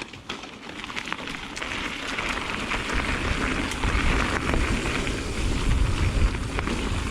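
Bicycle tyres rolling over a dirt trail, with scattered clicks and wind rushing over the microphone, growing louder as the bike picks up speed.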